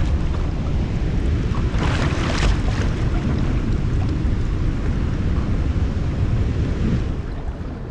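Wind rumbling on the microphone over ocean water sloshing around the camera at the surface, with a louder splash about two seconds in.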